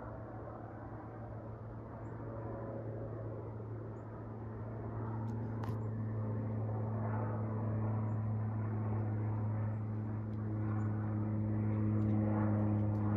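Airliner's engines droning as the plane passes low overhead on its approach, a steady low hum that grows gradually louder as it nears.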